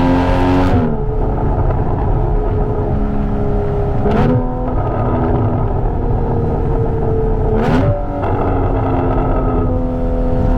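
2016 Porsche Cayman's 2.7-litre flat-six, through an aftermarket Soul Performance exhaust, revving hard under acceleration. The pitch climbs, then drops sharply at a gear change just under a second in. Short sharp bursts of exhaust noise come at changes around four and eight seconds in, and the revs climb again near the end.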